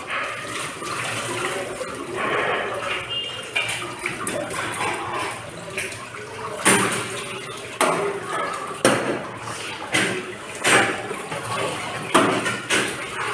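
Water running and dishes being washed: a steady rush of water for about the first six seconds, then sharp clatters and knocks about once a second as dishes and pans are handled and set down.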